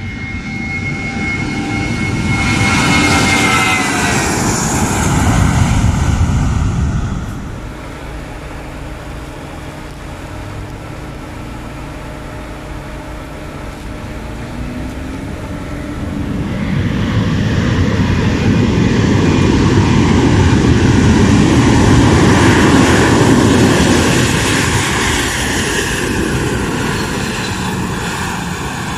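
Twin-engine jet airliners running on the runway. Loud jet noise with a whine that falls in pitch about three seconds in drops off sharply around seven seconds. After a quieter spell, a second loud engine rush builds and peaks as an Airbus A320 passes close by, then eases off.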